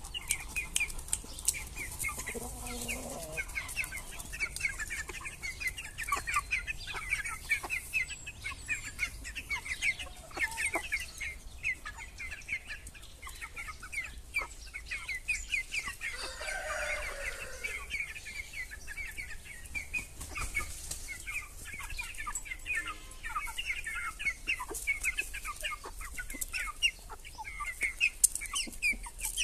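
A flock of Aseel chickens in a coop clucking continuously with many short high calls, with wings flapping now and then. A longer falling call stands out about halfway through.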